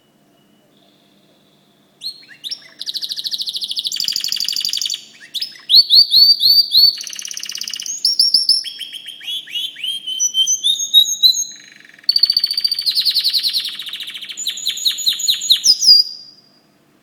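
Domestic canary singing a long song of rapid trills and rising chirps, starting about two seconds in, pausing briefly near the middle, and stopping about a second before the end.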